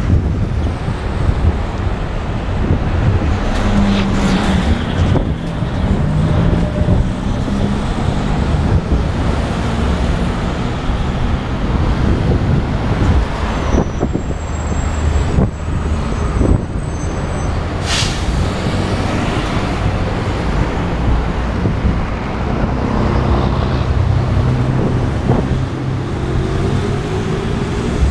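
Street traffic heard from a moving bicycle: wind rumbling on the microphone over the engines of passing motor vehicles, one rising in pitch as it accelerates near the end. A brief high whine comes about halfway.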